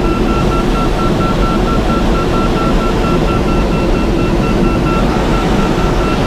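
Steady rush of air over a glider's canopy in flight, with an audio variometer beeping in quick, even high-pitched pips throughout; a beeping vario signals rising air.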